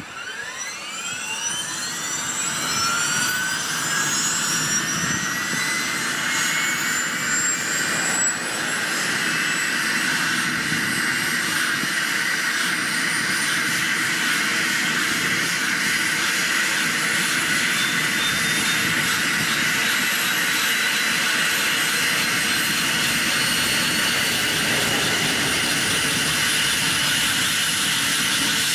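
Airbus H145 helicopter's turboshaft engine starting up: a rising turbine whine that climbs in pitch and loudness over the first few seconds, then holds as a loud, steady high whine as the rotor begins to turn.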